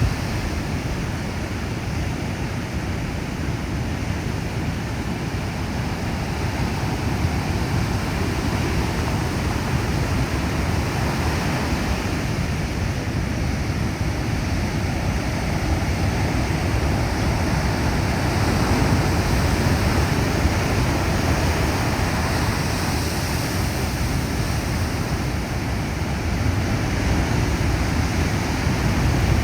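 Heavy ocean surf: a continuous rush of breaking waves, swelling slightly louder now and then.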